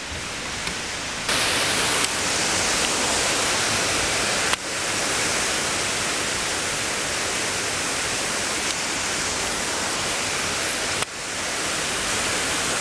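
Steady rushing of a waterfall pouring into a river pool, a dense even noise. It gets abruptly louder about a second in and jumps in level twice more later on.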